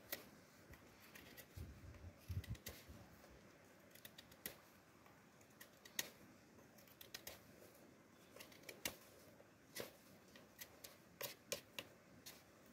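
Steel knife blade scraping and peeling a thin plant stem in short, irregular strokes, with a few soft low bumps about two seconds in.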